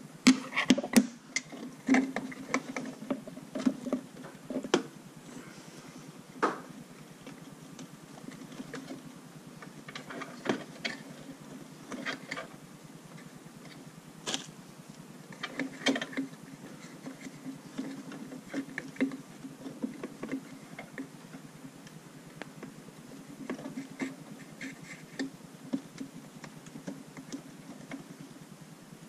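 Scattered clicks, taps and light knocks of plastic parts, hose fittings and connectors being handled inside an opened espresso machine while its water pump is refitted. The clicks come thick in the first few seconds, then at intervals.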